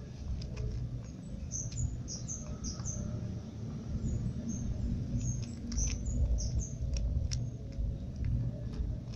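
A cat crunching dry kibble from a clear plastic container, with irregular crisp clicks and crunches, over a steady low background rumble.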